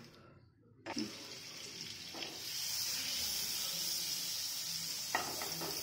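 Butter sizzling as it melts in hot oil in a nonstick frying pan: it starts suddenly about a second in, then settles into a steady hiss that grows louder and holds.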